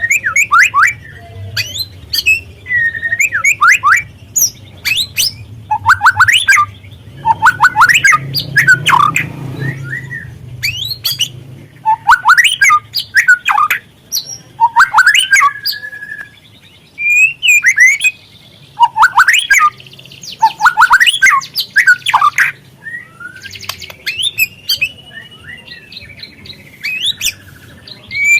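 Juvenile white-rumped shama singing in repeated bursts of fast, sharp chirps and twittering notes, each burst a second or two long with short pauses between. A faint low hum sits under the first half.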